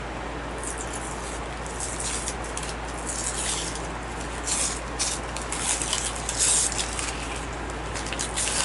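Toy packaging being handled: irregular crinkling and rustling of paper and plastic in quick scratchy bursts, over a low steady hum.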